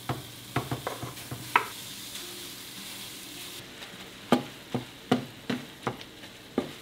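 Raw pork chorizo sizzling as it fries in a nonstick pan. It is punctuated by sharp knocks and taps of a nylon meat chopper against the pan as the sausage meat is broken up, in two bursts: early, and again from about four seconds in.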